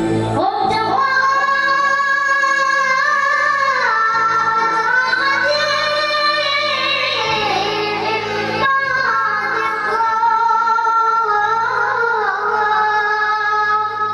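A munshid's high solo voice singing a mawwal, long notes bent and ornamented, with a breath about four seconds in and another past the middle. Steady low sustained tones run underneath.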